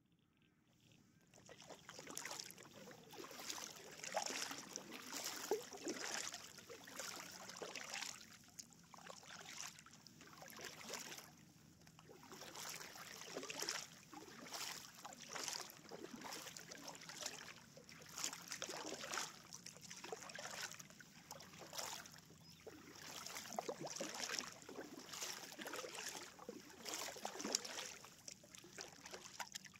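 Double-bladed kayak paddle stroking through calm lake water, each stroke splashing in a steady rhythm of roughly one every second or two, starting about a second in.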